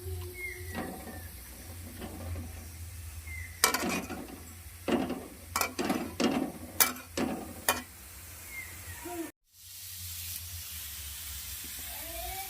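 Chopped onion dry-frying in a kadai with no oil, a low sizzle underneath. A spatula stirs and scrapes against the pan in a run of sharp knocks through the middle.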